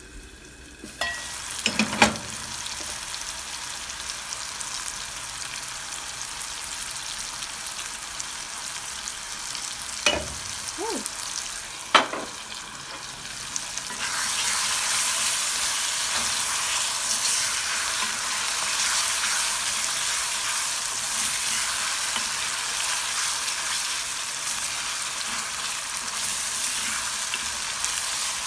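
Creole liver gravy sizzling and bubbling in a metal pot while it is stirred with a wooden spoon. There are a few sharp knocks of lid and spoon against the pot in the first half, and the sizzle grows louder about halfway through.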